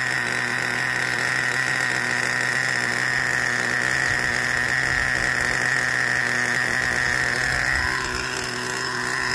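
A nitro RC monster truck's small glow-fuel engine idling steadily with a high-pitched whine, its note shifting slightly near the end. The engine is running rich and has not yet been fine-tuned for full power.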